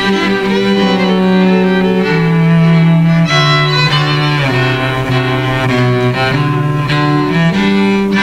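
String ensemble music: bowed strings hold sustained notes over a cello line in the low register that steps to a new note about once a second.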